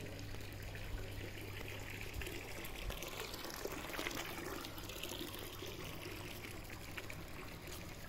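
Swimming-pool water trickling and splashing steadily over a low, steady hum.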